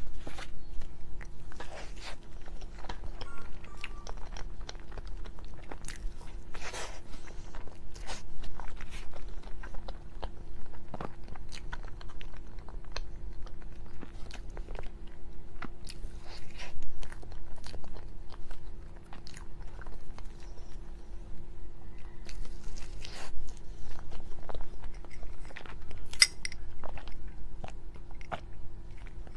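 Close-miked eating sounds: a person biting and chewing a soft dessert, with irregular wet mouth clicks and smacks. A faint steady hum runs underneath.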